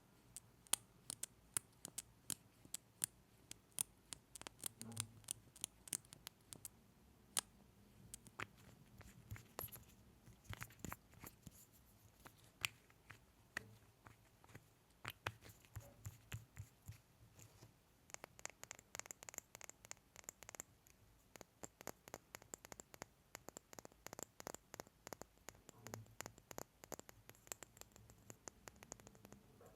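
Close-miked ASMR mouth sounds: a long run of quiet, sharp, wet lip smacks and tongue clicks, many a second, with a few brief pauses.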